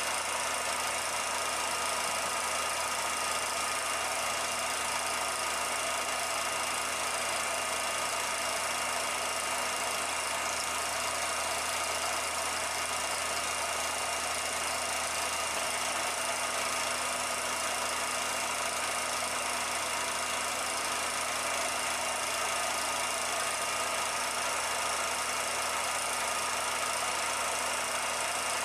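A steady, unchanging mechanical running noise: a constant hum with hiss over it.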